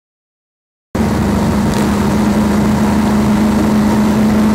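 Motorcycle running at a steady road speed, heard through a camera mounted on the moving bike: a steady engine hum under wind and road noise. It cuts in abruptly about a second in, after silence.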